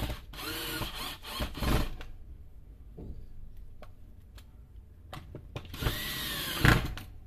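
Cordless drill-driver driving screws into a plastic tool housing: a few short runs of the motor in the first two seconds, then a longer run near the end whose whine rises and falls, with a few faint clicks in between.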